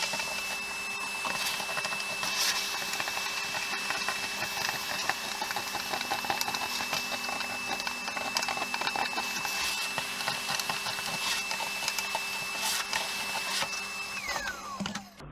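A high-speed power tool motor runs with a steady whine while cutting wood, clearing out a cut, with a dense crackling of the cutter in the wood. Near the end it is switched off and its pitch falls as it winds down.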